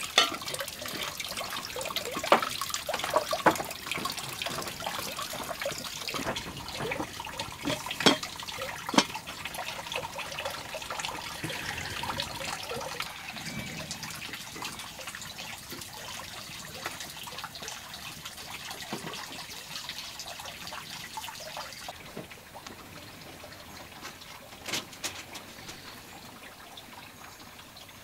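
Water running from a bamboo pipe and splashing into a metal basin while a small pot is rinsed under the stream, with a few sharp knocks in the first ten seconds. The running water grows fainter later on.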